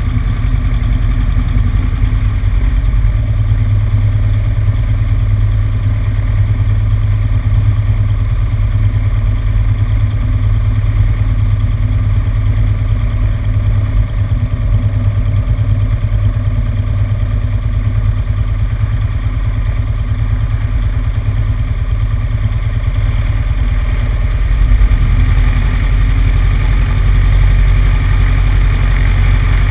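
Cessna 150's four-cylinder Continental O-200 engine and propeller running steadily, heard with wind rush on a wing-mounted camera; the engine gets a little louder about 25 seconds in.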